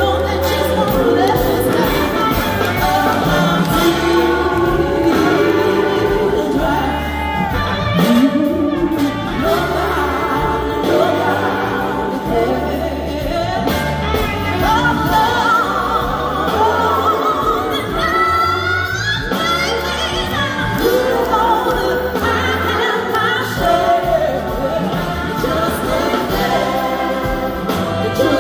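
Live band music: a woman singing lead over a full band with bass and drums.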